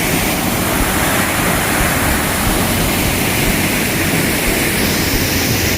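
Waterfall crashing into its plunge pool, a loud, steady rushing roar of water.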